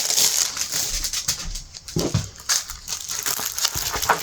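Crinkly plastic packaging rustling and crackling as a diamond painting kit is handled and unwrapped.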